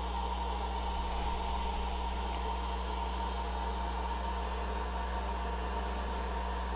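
Steady machine hum with a faint high tone held level throughout, such as a small cooling fan or a power supply running.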